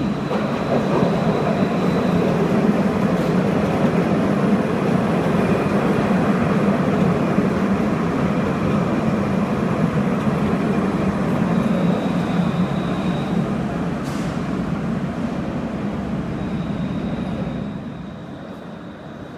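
An RATP tram pulls into an underground station and runs past close by: a steady rumble of wheels and running gear, with a faint high whine. There is a single sharp click about two-thirds of the way through, and the sound dies down near the end.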